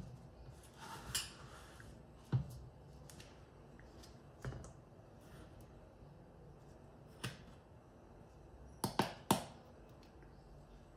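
Steel spoon scooping powdered sugar into a plastic measuring cup, with scattered light clicks and taps against the cup and the steel bowl, and a quick run of three taps near the end.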